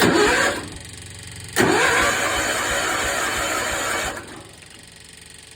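Electric starter cranking the small engine of an old riding lawn tractor, twice: a short burst, then a longer one of about two and a half seconds, each spinning up as it begins. The engine cranks but won't fully start.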